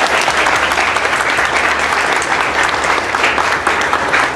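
Audience applauding: a sustained round of many hands clapping.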